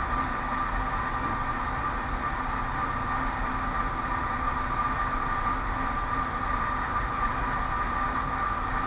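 Steady background hum and hiss with a constant high whine, unchanging throughout; no distinct pick clicks stand out.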